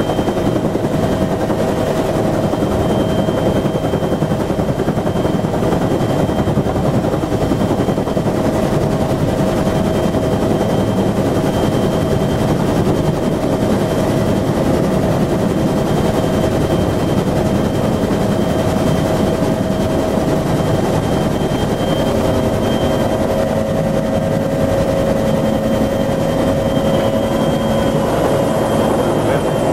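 Bell UH-1 Huey helicopter's rotor chopping and turbine running, heard from inside the cockpit, with a steady high turbine whine over a dense rotor and engine noise.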